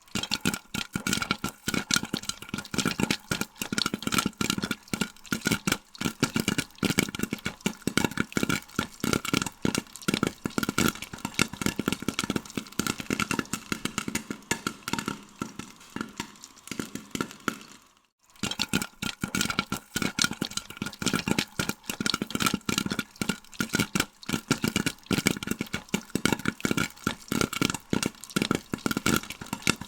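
Popcorn kernels popping in a dense, rapid crackle of many small bursts over a steady hum. The popping breaks off for a moment about 18 seconds in, then carries on as before.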